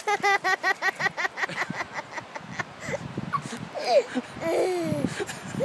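A toddler laughing in a quick run of giggles, followed near the end by a few longer rising and falling vocal sounds.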